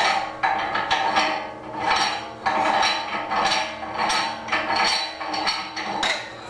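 Metal-on-metal scraping and clinking as the stainless steel ring nut and head parts of a 1 hp electric meat grinder are taken apart, in repeated strokes about two a second.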